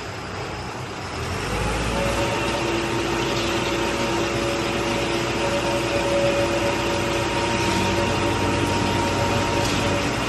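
Self-loading concrete mixer's engine running steadily, with a steady mechanical whine joining in about a second and a half in.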